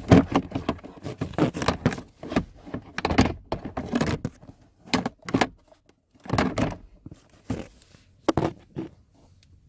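Plastic glove box door of a Chevrolet Equinox knocking and clunking against the dashboard as it is worked back onto its hinge bar, with its clamps not yet latched: a string of irregular thuds and plastic clatters.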